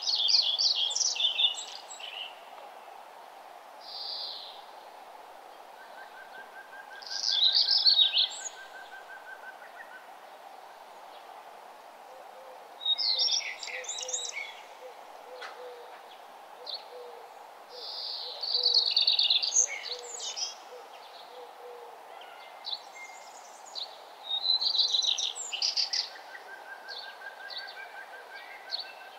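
A songbird singing short, high, chirpy phrases of about two seconds, repeated roughly every five to six seconds, over a faint steady background hum. A fainter, lower, even trill sounds twice in the gaps.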